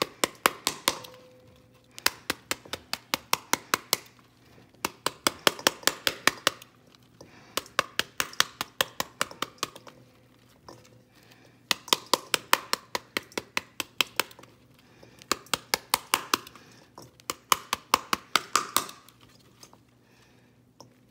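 Heavy knife handle tapping rapidly on the skin of a cut pomegranate held over a steel bowl, knocking the seeds loose. The taps come about six a second in runs of a second or two, with short pauses between runs.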